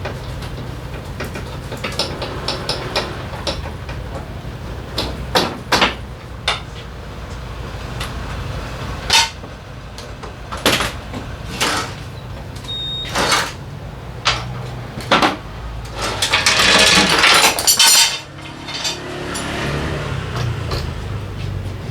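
Metal tools and parts clinking and knocking as an engine is unbolted and removed from a Honda PCX 125 scooter, with a denser rattle for about two seconds near the end, over a steady low hum.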